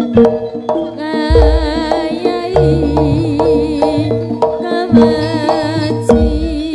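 Live jaranan music: a wavering melody line with vibrato over steady held gamelan notes, with hand-drum strokes and deep bass thumps every second or so.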